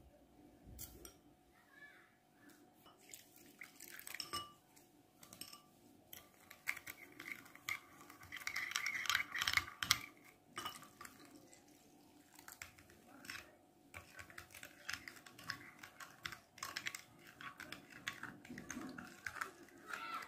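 A metal teaspoon clinking and scraping against a small glass bowl as sugar and dry yeast are stirred, with water poured in from a glass cup about halfway through.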